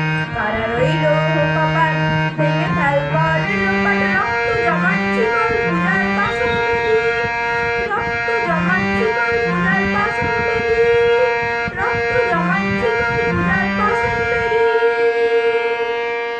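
A harmonium plays a melody and sustained chords, with a voice singing along and drum strokes keeping time. The low notes stop near the end, leaving one held note.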